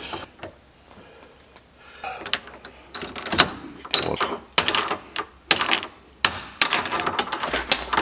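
Hand tools working the car's steel fuel line where its rounded-off end is being cut off and re-made: a quick, irregular run of sharp metallic clicks and clacks that starts about two seconds in and grows busier.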